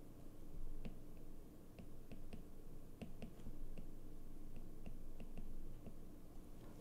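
Faint, irregular clicks of a stylus tip tapping on a tablet's glass screen while handwriting, a few per second, over a steady low hum.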